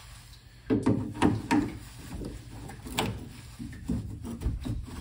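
Pliers working the spring clamp on a radiator hose to loosen it for removal: scattered metal clicks and knocks with rubbing of the rubber hose, several close together about a second in and a sharp click about three seconds in.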